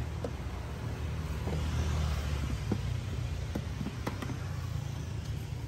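Low rumble of passing road traffic that swells as a vehicle goes by about two seconds in. Light clicks and taps of plastic food-container lids being handled come through it several times.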